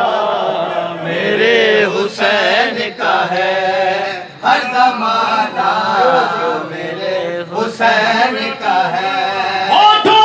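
A man chanting a devotional qasida in praise of Imam Hussain, sung in long melodic phrases with short breaks between lines.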